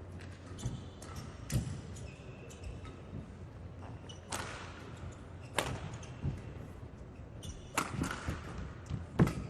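Badminton rally: rackets striking the shuttlecock in sharp cracks about every second or so, with short high squeaks of players' shoes on the court floor between shots.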